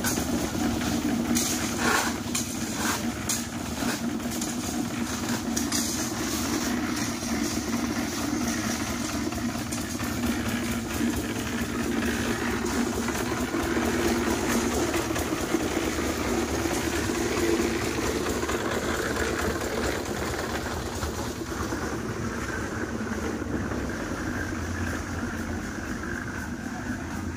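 Engine of a concrete mixer running steadily, with a few sharp knocks about two seconds in.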